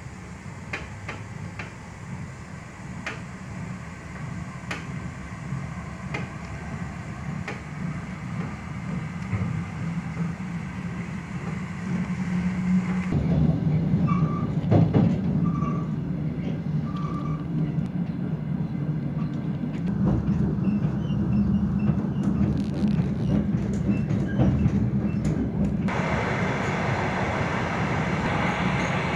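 Diesel train heard from inside the carriage: the engine and the wheels running on the rails, growing louder over the first dozen seconds as the train picks up speed, with scattered light clicks. About thirteen seconds in it turns abruptly to a louder, deeper rumble.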